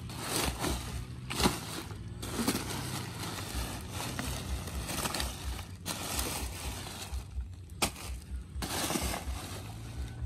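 Plastic rubbish bags and litter rustling and crackling in irregular bursts as a wooden stick pokes and drags through them, with a couple of sharp snaps.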